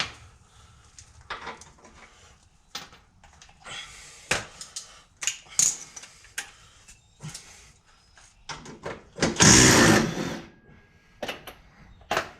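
Metal hand tools clicking and clattering in irregular knocks, with one loud harsh burst lasting about a second about three quarters of the way through.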